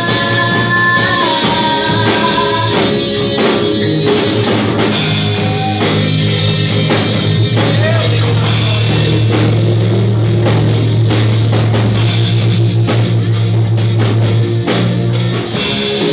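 Live worship band playing an instrumental passage in a rock style: drum kit and guitars, with a held note over the first few seconds.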